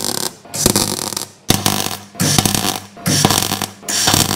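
MIG welder arc crackling on sheet steel in short bursts, about one a second with brief gaps: stitch-welding a steel strip into a car's chassis leg.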